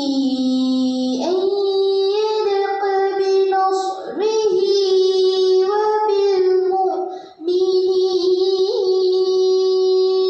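A girl's voice reciting the Quran in tarannum, the melodic chanted style, drawing out long held notes that bend and slide between pitches. There is a short break for breath about seven seconds in, then another long held note.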